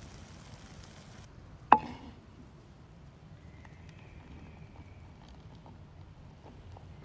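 A single sharp knock, as of a hard object struck or set down, with a short ring, followed by a few faint ticks over low background noise. A high hiss stops suddenly just before the knock.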